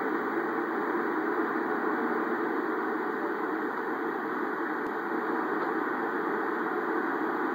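Communications receiver in FM mode giving a steady, muffled static hiss from its speaker while tuned across the UHF military satellite band near 250.5 MHz, with no voice or carrier coming through.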